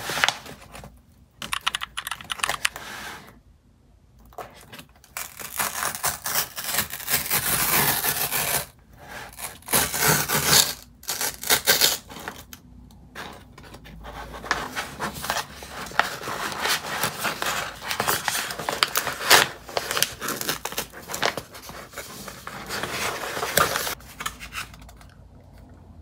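Brown paper padded mailer being torn open by hand: irregular bursts of paper crinkling and ripping as the tear strip is pulled, with short pauses between.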